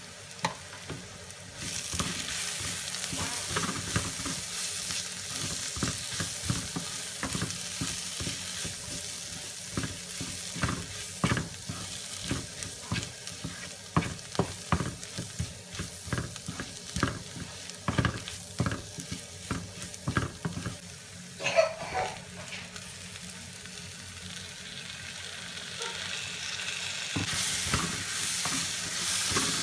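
Onions and ground spices sizzling in a nonstick frying pan, with a wooden spatula stirring and scraping against the pan in quick strokes. The sizzle grows louder near the end as chopped tomatoes go in.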